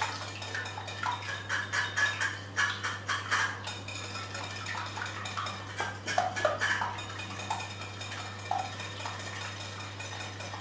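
Wire whisk beating raw egg whites in a glass bowl, the wires clicking and tapping rapidly against the glass.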